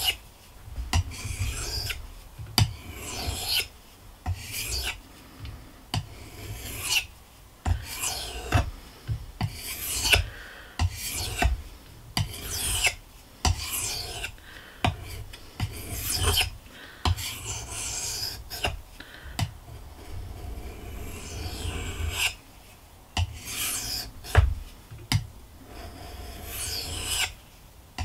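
Knife blade being pushed across a white corundum whetstone in repeated sharpening strokes: a gritty rasping scrape, about two strokes a second, with dull low thuds of hand and stone underneath.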